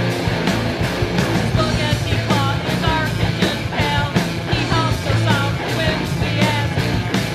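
Rock band recording with drums, electric guitar and bass playing steadily, and a higher bending melodic line coming in about a second and a half in.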